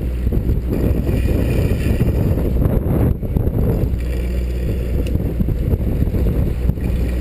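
Fishing boat's engine running with a steady low drone, with wind buffeting the microphone and water sloshing against the hull.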